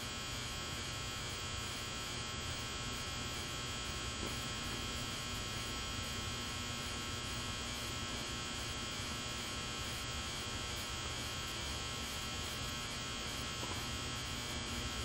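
Steady electrical buzz with an underlying hum, unchanging throughout.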